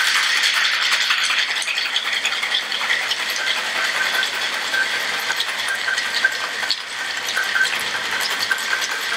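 Ice rattling hard inside a metal cocktail shaker that is being shaken vigorously: a fast, continuous clatter of ice against the tin. This is the 15-second ice shake of a Ramos Gin Fizz.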